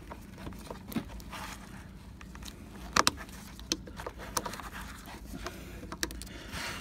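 Small clicks and scrapes of a straight pick being worked into a seat belt anchor to push in its retaining tab, with a sharper double click about three seconds in.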